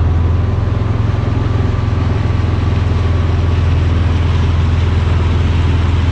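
A small vehicle engine running steadily at an even speed, a constant low drone with a steady hiss over it.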